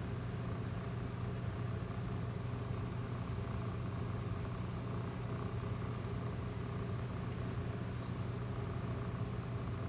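Steady low mechanical hum, like a motor running, with several even tones held throughout.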